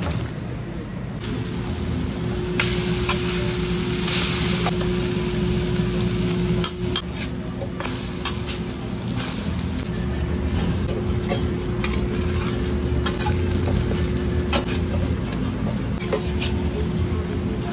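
Eggs and bacon frying on a flat-top griddle, a steady sizzle that swells for a couple of seconds early on, with sharp clicks and scrapes of a metal spatula on the steel. A steady low hum runs underneath.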